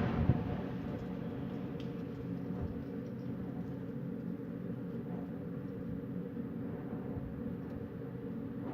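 Wind blowing with a steady low rumble, a stronger gust easing off in the first second.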